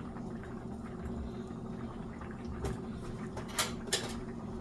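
Pots simmering on a kitchen stove, with a steady low hum under them and three sharp clicks in the second half.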